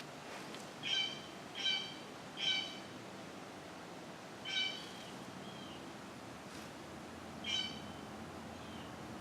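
Five short pitched animal calls: three in quick succession about a second in, then one near the middle and one more later, over faint steady outdoor background noise.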